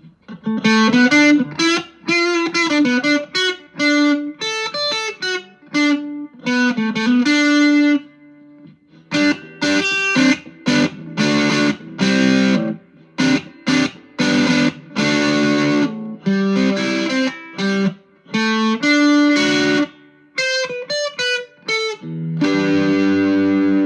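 Electric guitar on its neck pickup, played through a JHS Ross Distortion pedal into a Vox AC10 amp with the distortion about three-quarters up: short distorted riffs and chords with brief gaps, ending on a long held chord.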